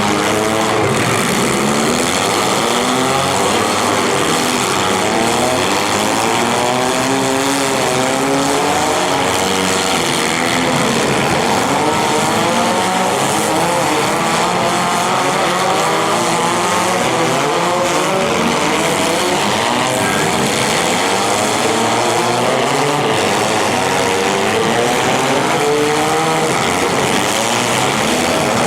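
Several compact-car engines in a demolition derby heat revving hard at once, their pitches rising and falling over one another without a break.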